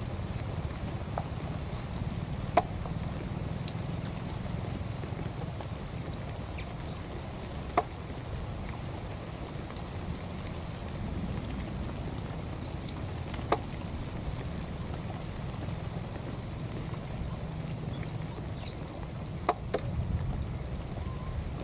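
Wind rumbling on the microphone, with about four short sharp ticks spread through and a few faint high chirps in the second half.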